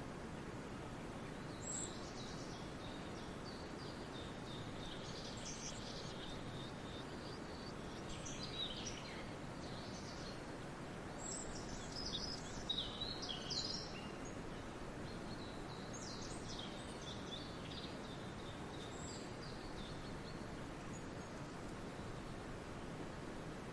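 Forest birds singing and calling in short high chirps and trills that come in scattered clusters, busiest in the middle, over a steady low background noise.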